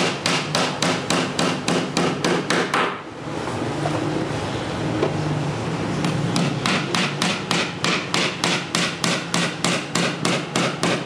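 A small hammer tapping nails into a laminated particleboard panel, quick light blows about four a second. There is a pause of about three seconds in the middle.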